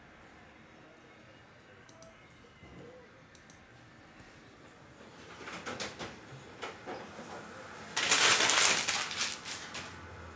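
Quiet room tone, then scattered clicks and knocks of things being handled at a desk, with one loud noisy burst about a second long, about eight seconds in.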